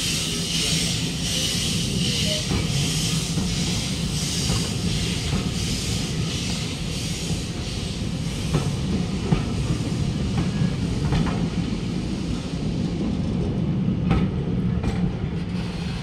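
Steam-hauled teak heritage railway coaches rolling slowly past on the track: a steady low rumble, with steam hissing that fades away over the first half, and clacks of wheels over rail joints in the second half.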